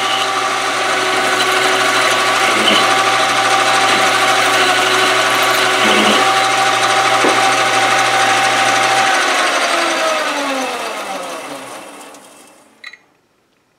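Metal lathe running steadily while a boring bar cuts a recess in a steel plate held in a four-jaw chuck. About nine seconds in the motor is switched off, and the pitch falls as the chuck spins down to a stop, followed by a couple of small clicks.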